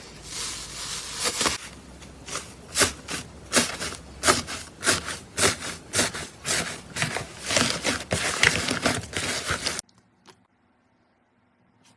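Slime being squeezed and worked by hand, giving a run of sharp clicks and pops, about one to two a second, over a crackly rustle. It cuts off suddenly near the end.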